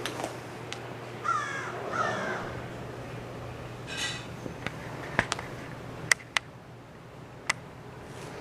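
A bird calling with harsh cries, two about a second in and another around four seconds, followed by several sharp clicks or taps.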